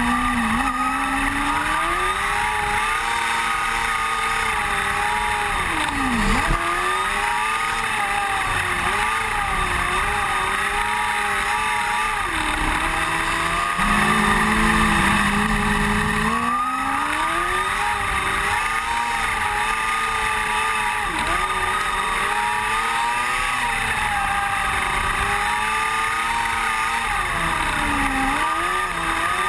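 Onboard sound of an open-wheel dirt-track race car's engine at racing speed. Its pitch climbs along the straights and drops sharply into each turn, over and over. It holds a steady lower note briefly at the start and again about halfway through, then winds back up.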